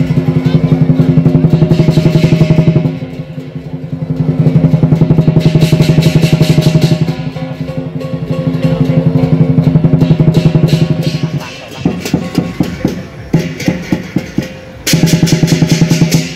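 Lion dance percussion: a large drum beaten in fast, sustained rolls with cymbals clashing over it. About eleven seconds in the rolls break into separate, spaced strikes, and a fast roll starts again near the end.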